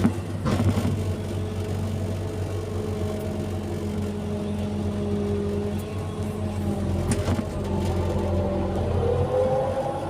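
Excavator's diesel engine running steadily while it works, with two sharp metallic knocks, one about half a second in and one about seven seconds in. The engine pitch rises near the end.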